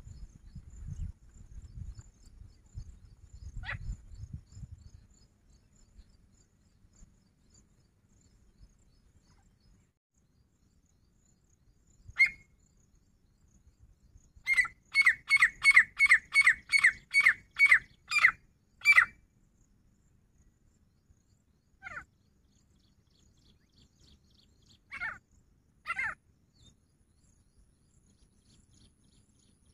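Grey francolin calling: single sharp notes now and then, and in the middle a loud run of about eleven evenly spaced notes, a little over two a second.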